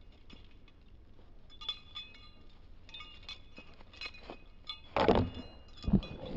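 Scattered faint, high ringing tones and small clicks, then two loud thumps about five and six seconds in.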